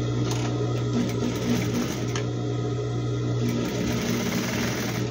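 Electric sewing machine running steadily, stitching thick strips of fabric.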